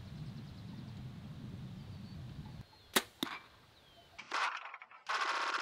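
Compound bow shot: the sharp crack of the string at release, then a second crack a quarter second later as the broadhead-tipped arrow strikes the ballistic gel block. Before the shot a steady low wind rumble; near the end a loud burst of rushing noise.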